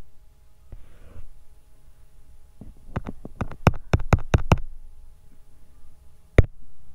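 A quick run of about ten sharp taps or clicks lasting about two seconds, then one more near the end, over a faint steady hum.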